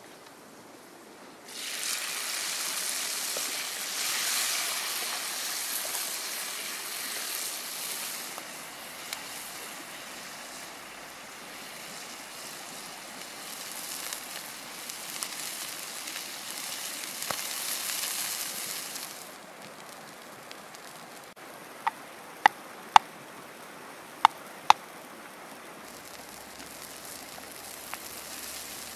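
A stream of water pouring into a wok full of red chillies: a steady splashing hiss that starts suddenly and fades out about two-thirds of the way through. A few seconds later come five sharp pops.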